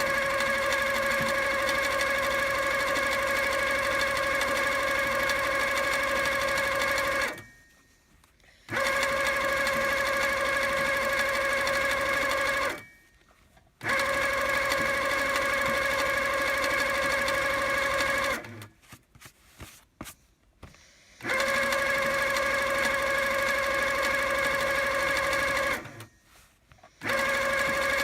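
Handi Quilter HQ Sweet Sixteen sit-down quilting machine stitching at a steady speed, a steady high-pitched motor whine. It stops four times for a second or two and starts again each time.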